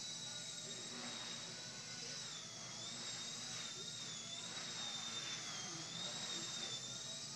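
Blade mCP X micro collective-pitch RC helicopter in flight: a high-pitched whine from its small electric motors and rotors that wavers slightly up and down in pitch.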